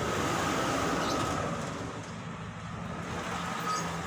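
Steady low rumble and hiss of a running motor vehicle.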